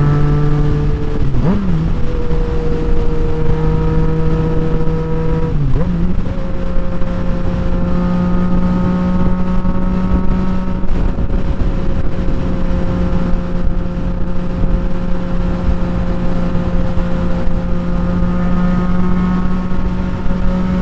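2018 Yamaha MT-09's three-cylinder engine running under way, with wind noise on the helmet mic. The engine pitch dips briefly about a second and a half in and again about six seconds in, settling a little higher each time, then holds steady.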